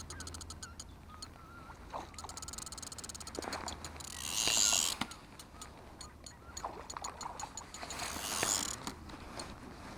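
Fishing reel clicking rapidly as line is wound in on a hooked carp, with two short loud bursts of hissing noise about four and eight seconds in.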